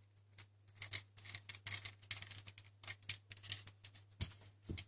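Small plastic and metal parts being handled and fitted in the optical-drive bay of an opened MacBook Pro, where a second-drive caddy replaces the superdrive: a quick, irregular run of light clicks, taps and scrapes, with two duller knocks near the end.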